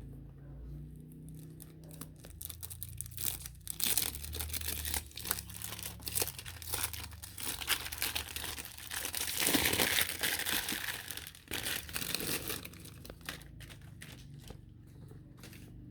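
Crinkling and tearing of the plastic shrink wrap being pulled off a perfume box, a dense run of crackles that builds about three seconds in, is loudest a little past the middle and dies away near the end.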